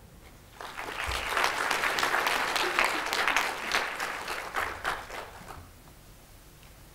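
Audience applauding: many hands clapping, starting about half a second in, then thinning out and dying away after about five seconds.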